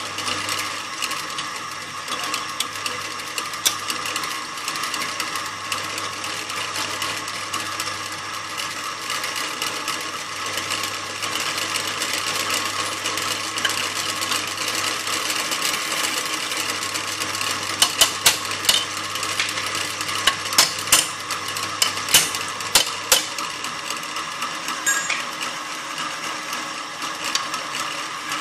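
Electric drill press motor running steadily with a hum and whine, and a run of sharp metallic clicks and ticks about two-thirds of the way through.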